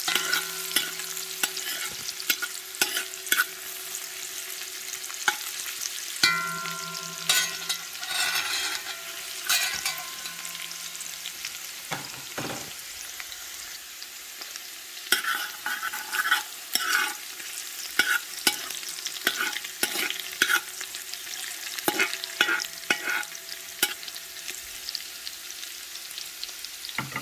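Onions, pimento, hot pepper and garlic sizzling in hot oil in a pot, with a spoon stirring and clicking against the pot again and again.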